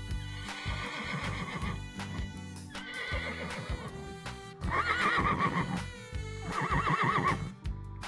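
Horse neighing about four times, each whinny with a quavering, wobbling pitch, over background music.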